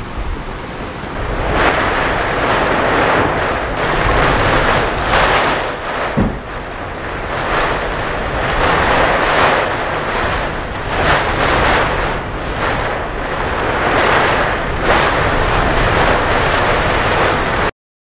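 Strong gusty wind, surging and easing every second or two, with wind rumble on the microphone. It cuts off suddenly near the end.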